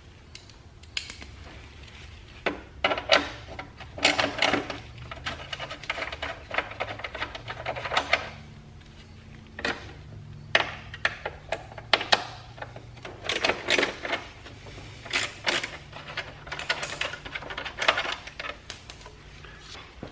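Hand ratchet clicking in short runs while the 10 mm bolt and Torx 25 screws holding a car's side body panel are backed out, with taps and clinks of small metal parts in between. A faint steady low hum lies underneath.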